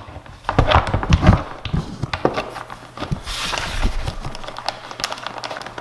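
Irregular clicks, knocks and rubbing of a plastic dirt-bike front-end part being handled and pressed into place against the fork while it is bolted on.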